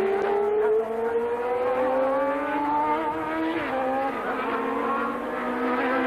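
1988 Formula One car engines running at racing speed, one engine note climbing steadily in pitch as the car accelerates while another, lower note steps down in pitch about halfway through.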